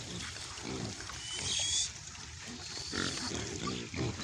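A herd of pigs grunting as they root and feed, in several short low calls, with a brief high squeal about a second and a half in.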